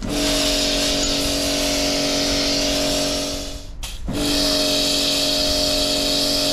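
Kärcher high-pressure washer running with a wet sandblasting attachment: the pump motor hums steadily under the loud hiss of the water-and-sand jet stripping paint from a steel hull. The jet cuts out for a moment just before four seconds in, then starts again.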